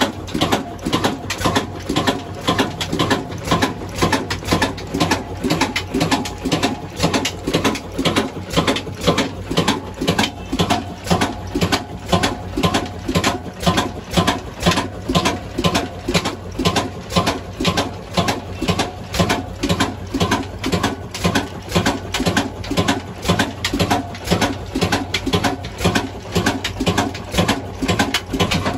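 Old 35 HP Hornsby horizontal stationary diesel engine running at a steady speed, its firing strokes making an even, repeating beat.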